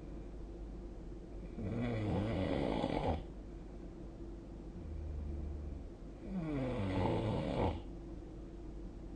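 A sleeping person snoring: two snores about five seconds apart, each lasting about a second and a half, over a steady low hum.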